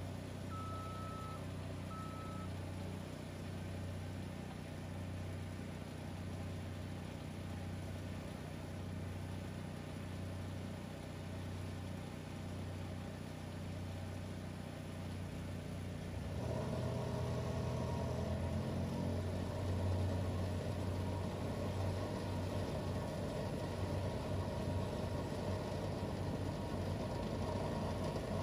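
Machinery running steadily: the engines of a skid-steer loader and a portable generator hum at idle, with two short beeps near the start. About sixteen seconds in, the sound steps up louder as another machine starts running alongside.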